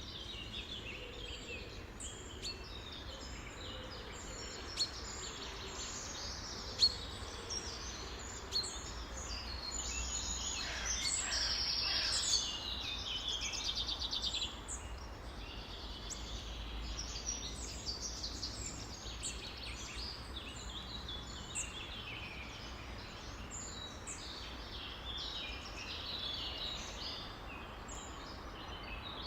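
A dense chorus of many birds chirping and singing at once, with a louder run of rapid repeated notes about eleven seconds in, over a low steady rumble.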